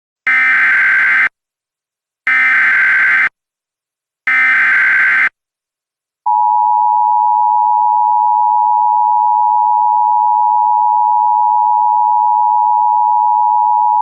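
Emergency Alert System signal: three one-second bursts of SAME digital header data, a second apart, followed by the steady two-tone EAS attention signal (853 and 960 Hz sounded together), which begins about six seconds in and holds for about eight seconds.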